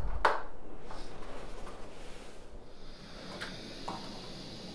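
Quiet room tone inside a small hut, with a short click just after the start and a few faint knocks later. Wind rumble on the microphone cuts off at the very start.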